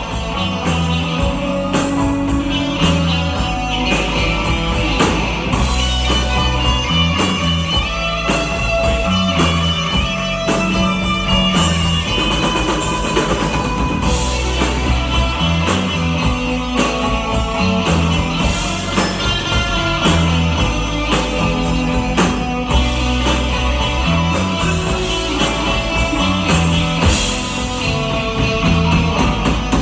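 A live rock band playing an instrumental passage: electric guitar, bass and drum kit, with a steady beat.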